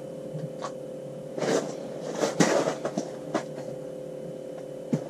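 Scattered rustling and light knocks of an angler moving about and handling underwater-camera gear, over a steady low hum.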